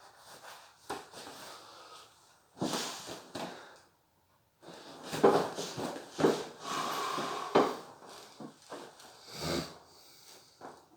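A sleeping person snoring: a run of irregular, noisy breaths, loudest in a cluster between about five and eight seconds in.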